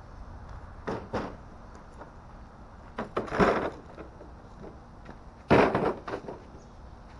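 Knocks and two louder, half-second clattering scrapes of metal equipment being handled under the truck, as a floor jack and its supports are taken away to lower the truck.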